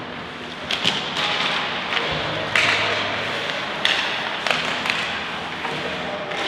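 Ice hockey play: irregular sharp knocks and thuds of sticks, puck and boards, about six in all with one dull low thud about two seconds in, over a steady rink hum.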